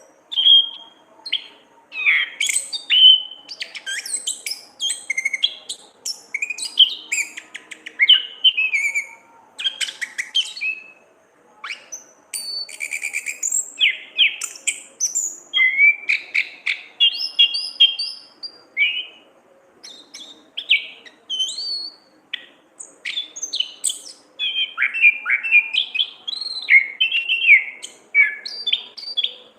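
Orange-headed thrush (anis kembang) singing a long, varied song of quick whistled notes, sweeps and rapid chattering trills, with a couple of short pauses.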